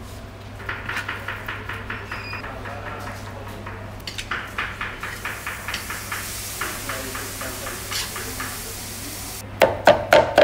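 A metal skimmer scraping and stirring rice in a cast-iron kazan, in quick rhythmic strokes. Near the end come a few loud chops of a knife through meat onto a wooden cutting board.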